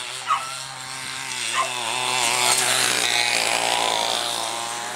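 Greyhound track's mechanical lure motor whining as it runs past the starting boxes, swelling over a couple of seconds and then easing off. There is a short sharp yelp from a greyhound near the start.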